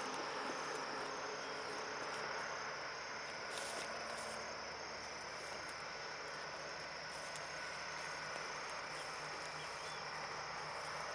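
Steady outdoor insect chirring, like crickets in grass, over an even hiss, with no change or sudden events.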